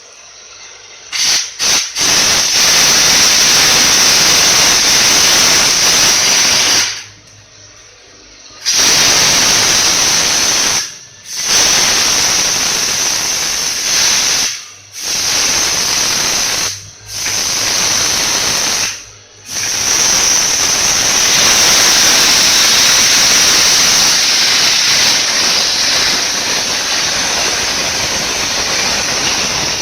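Espresso machine steam wand hissing, tested after an overhaul: three short puffs, then long blasts of steam with several brief stops, and a continuous blast through the last ten seconds.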